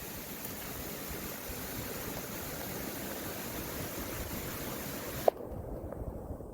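Steady, even hiss of outdoor noise. About five seconds in there is a single sharp click, and the hiss abruptly turns duller as its higher part cuts off.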